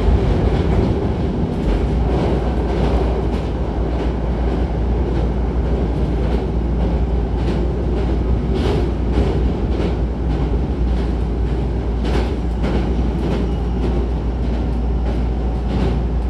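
Hankyu 9300 series electric train running at speed, heard inside the car by the doors: a steady low rumble of wheels on rail with scattered sharp clicks from the wheels and track, as it crosses a river bridge.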